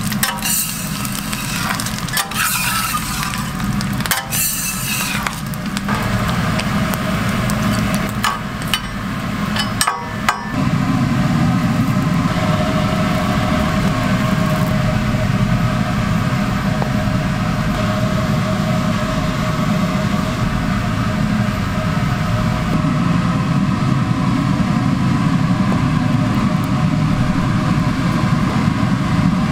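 Butter and bits of onion sizzling and crackling on a flat-top griddle for about the first ten seconds, over a low hum. From about ten seconds in, a loud, steady low mechanical hum takes over and carries on.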